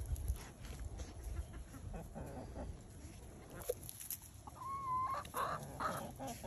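Chickens clucking faintly, with one drawn-out call that rises and then holds, about five seconds in.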